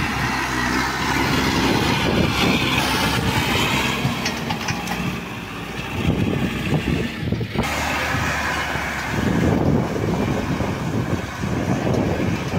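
Farm tractor's diesel engine running under load as it pulls a chisel plow through weedy soil, the sound changing abruptly about seven and a half seconds in.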